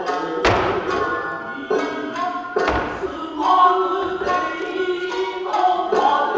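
Nagauta music: plucked shamisen with a sung voice, broken by two sharp thumps about two seconds apart.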